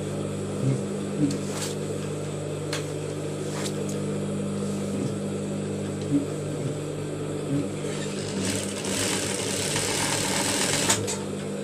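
Industrial sewing machine's motor running with a steady low hum and a few light clicks as the trim is positioned. About eight seconds in, the machine stitches for about three seconds, a louder rapid whirr over the hum.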